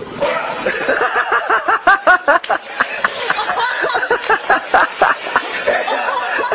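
A splash in pool water at the start, then people laughing hard in quick repeated bursts.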